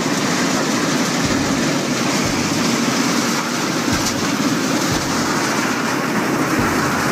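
SM 518 trommel screen running: steady machine noise from its rotating drum, conveyors and engine, with screened soil pouring off the belts and a few light knocks.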